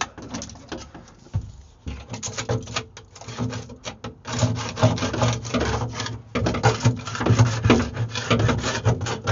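Plastic scraper scraping loose old paint off the inside of a fiberglass boat console in quick, repeated strokes, busier and louder from about halfway through.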